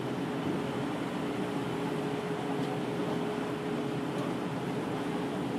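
Tour boat's engine running steadily: a constant hum at one pitch over a rushing noise of wind and water.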